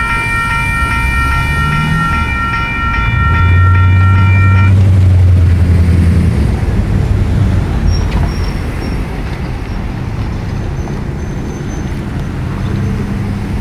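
Railroad crossing warning bell sounding steadily as the crossing gates lift after the train has passed, then cutting off about five seconds in. A vehicle's engine rises loudly as traffic starts back across the tracks, followed by the rumble of passing cars.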